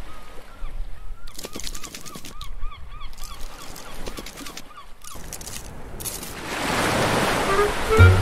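Cartoon sound effects for a scuttling crab: clusters of quick clicks and a rapid run of short squeaky calls. Near the end a wave surges in, and music starts right at the close.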